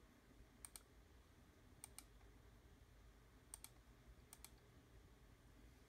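Four faint computer mouse clicks, each a quick double tick as the button is pressed and released, opening the Apple menu, over a low steady hum.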